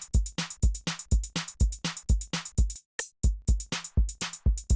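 Electronic drum-machine loop, a deep kick with crisp hi-hats at about three hits a second, played through FL Studio's Effector in grain mode with its bypass switched by square LFOs so the loop keeps playing. About three seconds in the beat cuts out briefly and stutters back in.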